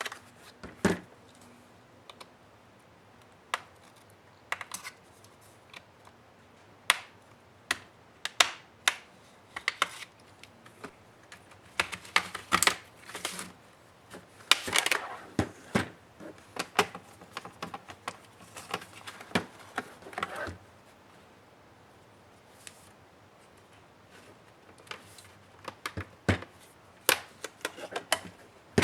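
Irregular clicks, taps and short scrapes of tools and parts being handled while the laptop's bottom case is worked open. The sounds come thickest in the middle, then pause briefly before a few more clicks near the end.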